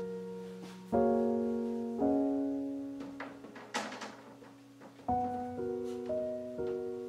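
Background piano music: slow, sustained chords, with new ones struck about a second in, two seconds in and again near five seconds.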